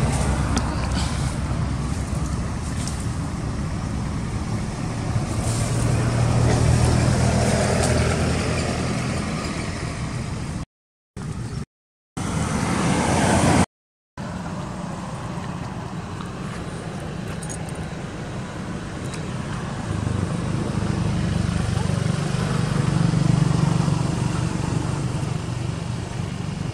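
Low hum of motor-vehicle engines and road traffic that rises and falls. The sound cuts out briefly three times around the middle.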